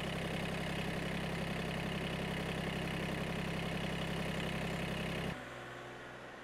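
An engine idling steadily, a low even hum that cuts off abruptly about five seconds in, leaving a much quieter background.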